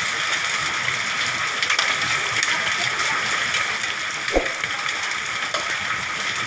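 Heavy hail and rain falling into the house through the gaps left by blown-off roof tiles, a dense steady patter pelting the floor and metal pots and lids. A single sharp knock comes about four seconds in.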